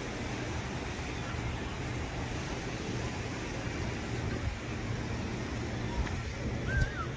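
Steady seaside wash of wind and surf with a low hum underneath. Near the end come a couple of dull thumps and a short high chirp.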